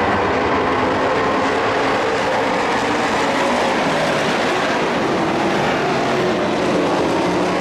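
Engines of several dirt-track race trucks running hard together around an oval, their overlapping engine notes forming a loud, steady drone.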